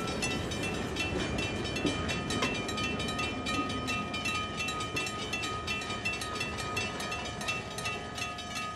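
Railroad grade-crossing bell ringing with rapid, evenly spaced strikes. Under it, the rumble of a passenger coach's wheels rolling over the crossing eases as the train moves away.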